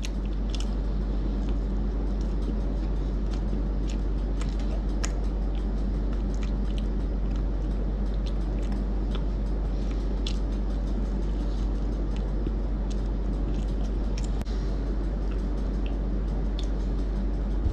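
Close-up chewing of a soft, mushy Oreo ice-cream sandwich: small wet mouth clicks and smacks scattered throughout, with no crunch. Under them is a steady low hum.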